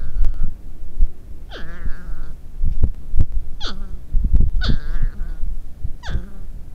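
Two North American porcupines arguing: about four loud, wavering wails that each slide steeply down in pitch, over low rumbling and knocks.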